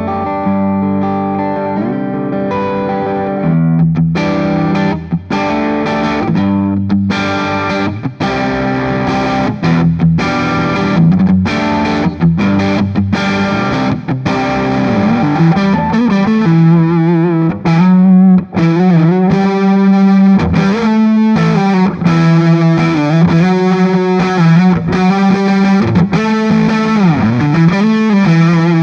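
Electric guitar, a Gibson Les Paul Special double-cut on its neck P-90 pickup, playing through a Soldano Astro 20 amp with mild overdrive and the guitar's volume knob rolled back to clean up the tone. Chords are struck repeatedly at first, then single-note lead lines with string bends and vibrato take over about halfway through.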